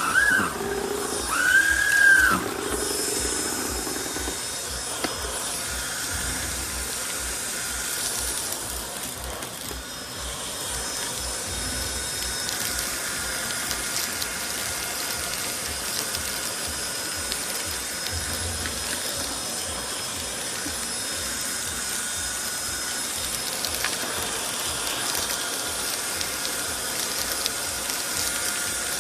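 Trucozie cordless stick vacuum running steadily: an even rushing hiss with a faint high whine.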